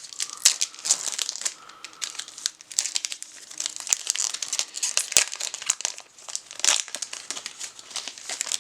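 Plastic wrapper of a trading-card pack crinkling and crackling as it is torn open and handled.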